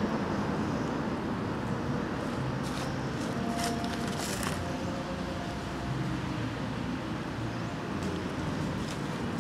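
Steady low outdoor rumble with no speech, and a few brief rustles of dry leaf litter a few seconds in as young macaques scuffle on the ground.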